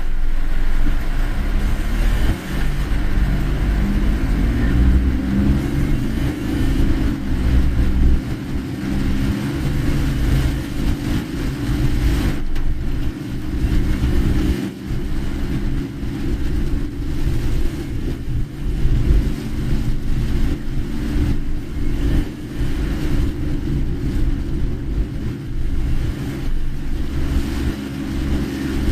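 Car being driven, heard from inside the cabin: a steady, low engine and road rumble.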